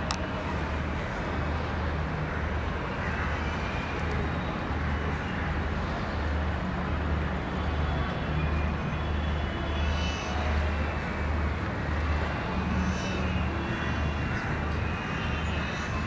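Steady outdoor city noise under a low rumbling hum that pulses regularly, a little more than once a second, with faint higher tones now and then.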